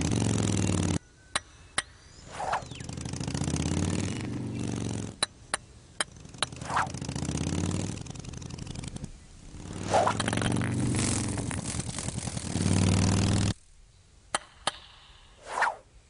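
Cartoon insect sound effects: stretches of engine-like buzzing that rise and fall in pitch and cut off suddenly, with sharp clicks and four short squeaky calls in the quieter gaps.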